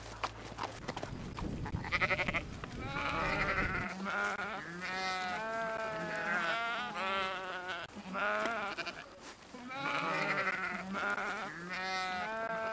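A bleating farm animal calling again and again, a long run of short, quavering bleats one after another. Under the first few seconds there is a low rumble that stops abruptly about four seconds in.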